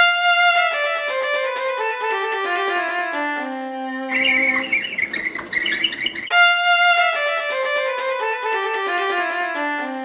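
Violin playing a quick descending scale of sustained notes, heard twice with a short, busier passage in between.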